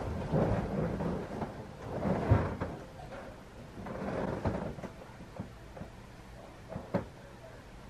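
A person shifting about on a bed: rustling of bedding and clothing with several dull knocks, the loudest about two seconds in and a sharp tap near the end.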